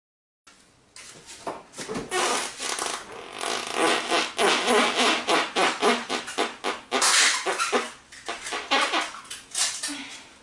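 Long run of loud, sputtering farts: rapid pops packed close together with a few short pitched blasts, starting about half a second in and tailing off near the end.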